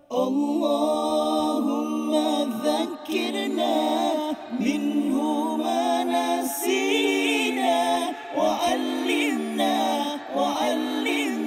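Unaccompanied a cappella singing, voices holding long notes and gliding between them in a slow melody. It comes in suddenly at the start.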